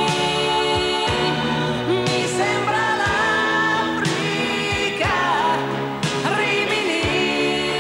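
1980s Italian pop song: a steady drum beat about once a second under keyboards, with a woman singing.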